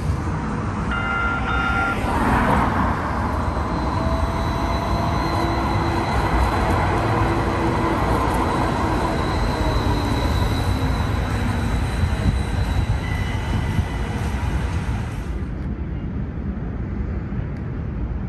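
Brookville Liberty modern streetcar running past on street track, an electric whine slowly falling in pitch over the rumble of wheels on rail, with a brief ringing tone about a second in. Near the end it gives way to a quieter steady outdoor background.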